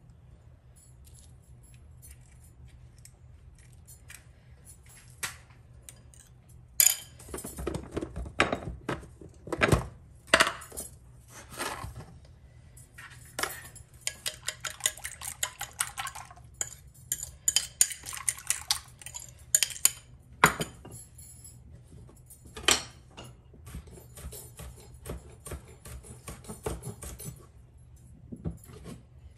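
Metal fork beating eggs in a ceramic bowl: rapid clinking and tapping of the fork against the bowl, starting a few seconds in and coming in bursts of fast whisking, over a faint low hum.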